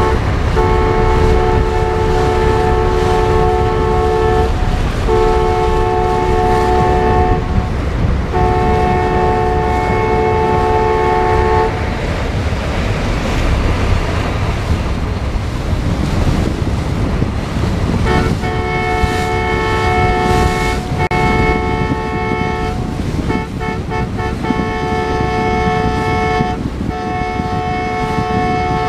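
Ships' horns sounding long, steady, many-toned blasts: three blasts of about three to four seconds, a pause of about six seconds, then a run of blasts broken by short gaps. A steady low rumble runs underneath.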